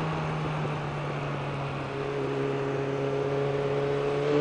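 Suzuki Bandit 600 motorcycle's inline-four engine running at a steady cruise, heard from the rider's helmet microphone along with road and wind noise. About halfway in a second, higher steady engine hum joins from an articulated city bus alongside.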